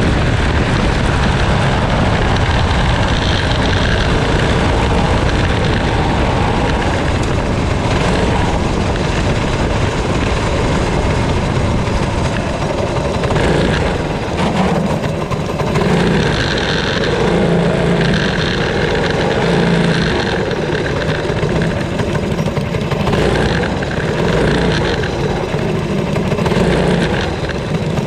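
Go-kart engine running hard, heard from on board the kart. About halfway through the sound drops to a lower, wavering engine note as the kart comes off the pace.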